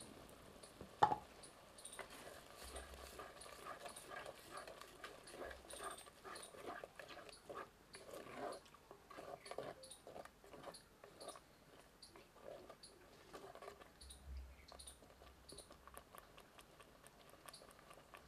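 Wooden spatula stirring thick tomato gravy in a clay pot, with soft scraping and squelching and one sharp click about a second in. Small crackles from the wood fire underneath.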